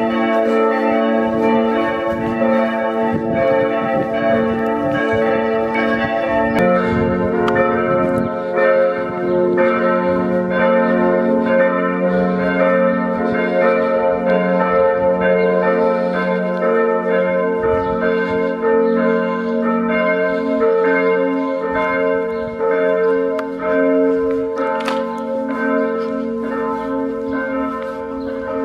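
Several church bells ringing together in a dense, overlapping peal, played back sped up so the strokes follow each other quickly. About seven seconds in, the mix of bell notes changes as the combination of sounding bells shifts.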